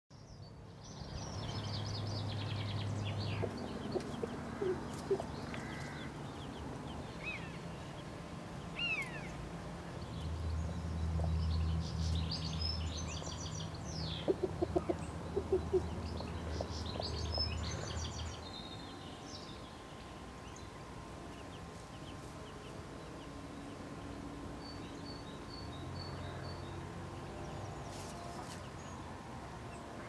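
Garden birdsong, with high chirps and gliding calls from wild songbirds, a hen clucking in short low calls about halfway through, and a run of evenly spaced high chick peeps near the end, all over a low background rumble.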